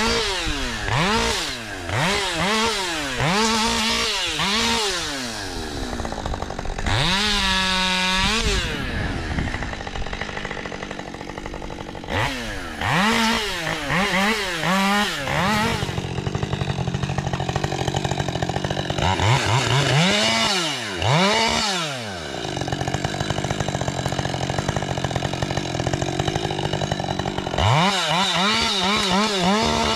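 Husqvarna 550 XP Mark II two-stroke chainsaw running, its throttle blipped repeatedly so the engine note rises and falls in quick arches. About seven seconds in it is held briefly at high revs, and between bursts of blipping it settles back to a steadier, lower running note.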